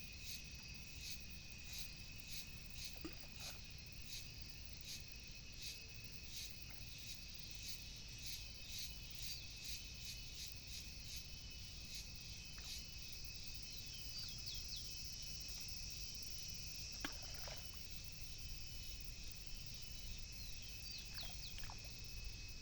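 Insects calling outdoors: a steady high-pitched drone with a regular ticking through the first half, and a higher hiss of insects swelling in the second half, over a faint low rumble.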